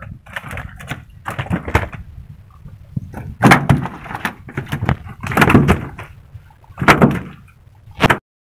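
About half a dozen irregular knocks and thumps, a second or two apart, over a low background rumble.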